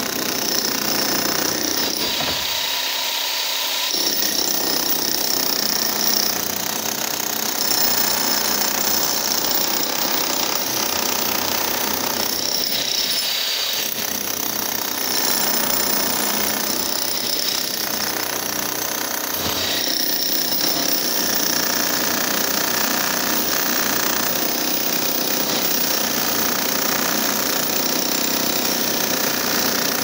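Hand-held electric demolition hammer (concrete breaker) running continuously as it breaks up concrete.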